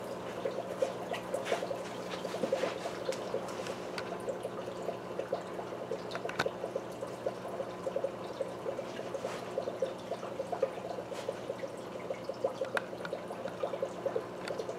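Aqueon 75 hang-on-back aquarium filter running, its outflow splashing and trickling steadily into the tank water over a faint steady low hum.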